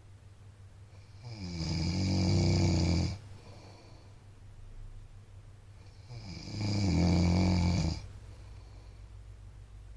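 A man snoring loudly: two long, buzzing snores about five seconds apart, each lasting about two seconds, with softer breathing between them.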